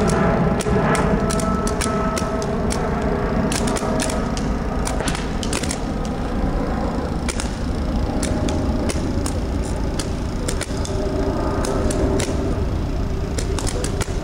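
Several paintball markers firing together: sharp pops in irregular strings and clusters, some shots close together and others spaced out, over a steady low background noise.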